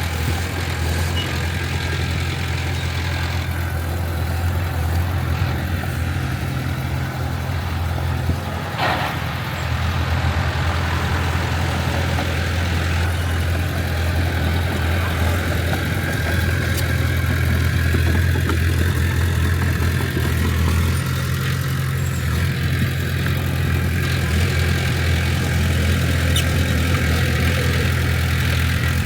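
Heavy construction machine's diesel engine running steadily with a low drone, its load rising a little partway through. One brief sharp noise comes about nine seconds in.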